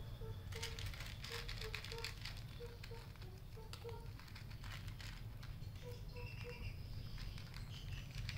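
A cat crunching dry kibble: irregular crisp clicks, densest in the first half, over a low steady rumble.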